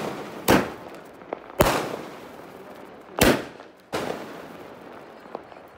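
Fireworks going off: four loud bangs at irregular gaps of roughly a second, with a couple of fainter pops between, each bang dying away within half a second.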